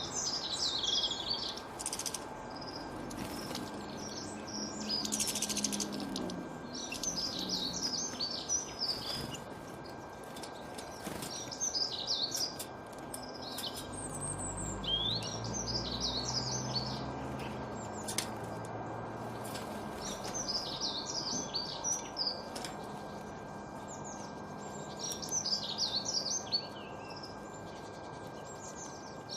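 Small songbirds chirping in quick, high-pitched bouts a second or two long, repeating every few seconds over a steady background hiss.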